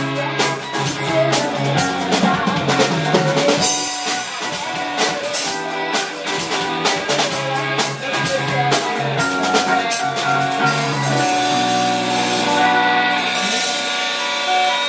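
Live rock band of electric guitars, bass guitar and drum kit playing. The drums hit steadily until about eleven seconds in, then give way to held, ringing guitar chords as the song comes to its close.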